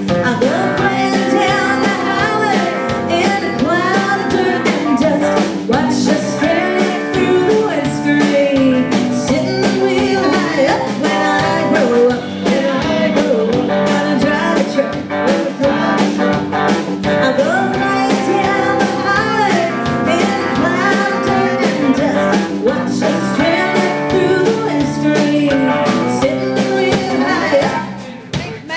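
Live band playing: drum kit, electric bass and a fiddle carrying the melody, with a woman's sung vocal at times.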